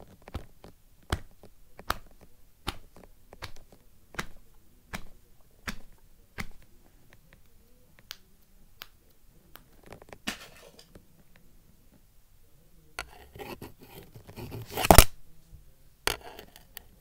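A series of sharp clicks, roughly one every 0.8 seconds, then patches of rustling, scratchy handling noise and one loud knock about fifteen seconds in.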